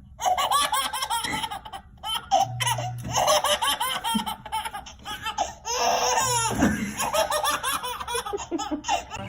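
A baby laughing hard in repeated bursts of giggles and squeals.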